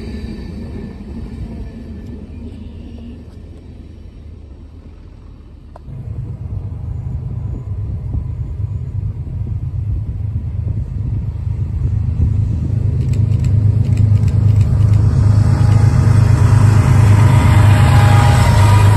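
Diesel locomotives of a CSX freight train approaching: a low engine rumble that grows steadily louder until the lead units draw alongside near the end, with rising wheel-and-rail noise. Before that, about the first six seconds hold the fading rumble of a tank-car train moving away.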